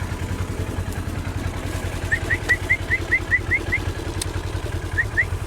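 Vehicle engine running steadily at low revs. About two seconds in, a quick run of about nine short, high, rising chirps comes over it, and two more follow near the end.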